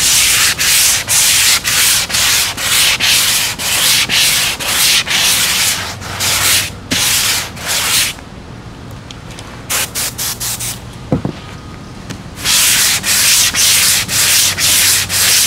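Flat handled sanding pad rubbed back and forth over a spackle-coated foam wing, a rasping stroke about two to three times a second, smoothing out ridges and bumps in the spackle. The strokes stop for a few seconds in the middle, with only a few light ones, then start again.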